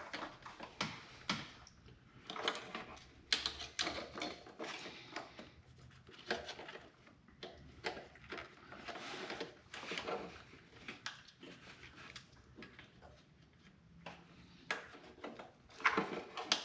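Irregular small clicks, ticks and scrapes of a small bent hand tool working plastic wiring-harness clips loose from the engine.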